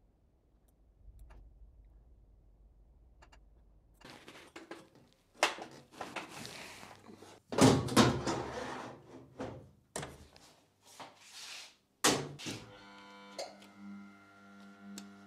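Sheet-metal sliding guard door on a CNC milling machine's enclosure being worked, with several thunks and scraping rattles. Near the end a steady machine hum with a clear tone starts up.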